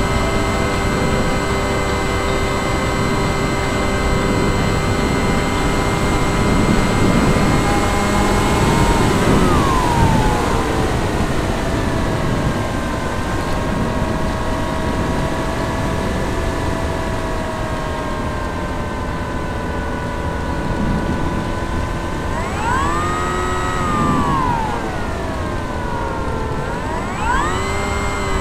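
Electric brushless motor (Sunnysky 2820, 920 kV) spinning an 11x7 propeller on a Skyhunter RC plane in flight: a steady whine that drops in pitch about a third of the way in as the throttle is eased, then twice rises and falls near the end. A constant rush of wind lies underneath.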